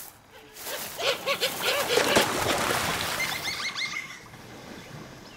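Capybaras splashing into the water as they flee a jaguar attack, loudest about two seconds in, with a quick run of short animal calls about a second in. Birds chirp near the end.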